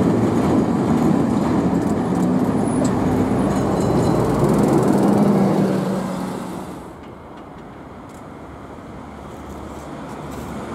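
Vintage 'Muki' motor freight tram car running along the rails, its wheels rumbling with a steady motor whine. About six seconds in the sound drops off to a much quieter low hum.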